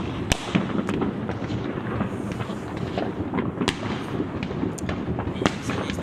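Many fireworks and firecrackers going off at once: a dense, steady rumble of distant bursts with sharp nearer bangs and cracks scattered through it. The loudest bang comes about a third of a second in.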